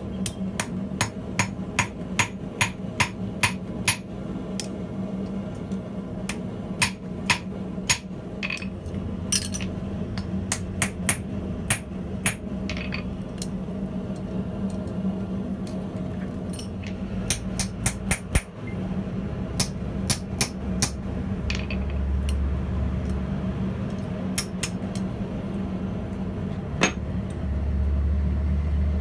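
Hand hammer striking hot steel on a steel anvil: sharp ringing blows in runs of about two a second, broken by short pauses, as the wrapped coil at the bar's end is forged and punched. A steady low hum runs underneath.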